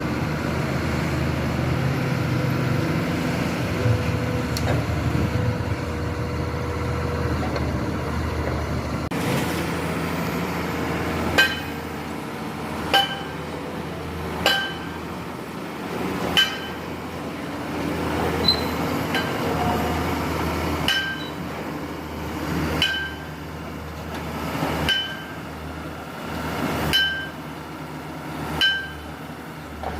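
Komatsu excavator's diesel engine running steadily. From about eleven seconds in, sharp ringing metal clanks come every one and a half to two seconds.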